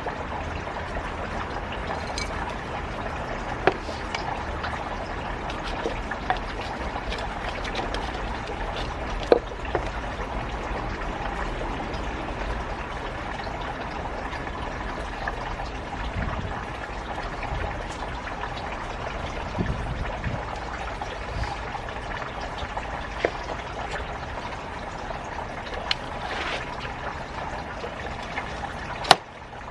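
Steady running, trickling water with scattered sharp clicks and knocks; a louder click comes near the end.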